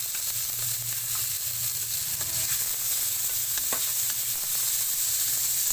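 Ground pork sizzling steadily as it fries in hot oil in a metal wok, stirred and scraped with a spatula. A sharp click comes about three and a half seconds in.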